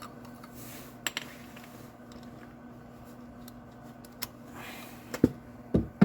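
Sharp metallic clicks and clinks of a screwdriver and its bits being handled and fitted, a few scattered and a louder cluster near the end, over a steady low hum.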